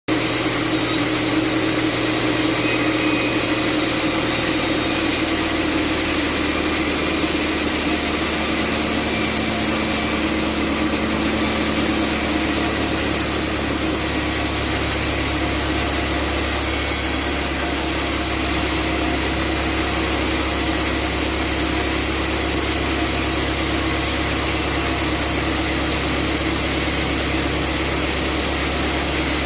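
Band sawmill running steadily as it cuts a rajumas log into timber, a continuous saw and machine noise with a steady hum underneath.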